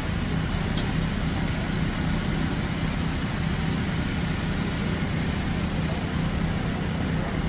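Fire truck engine running steadily, a low, even rumble with no siren.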